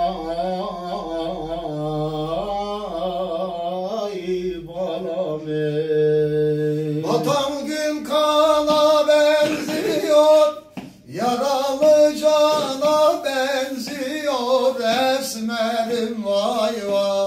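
A man singing an Elazığ folk song without instruments: long, wavering, ornamented notes. The voice climbs higher about seven seconds in and breaks off briefly a few seconds later before going on.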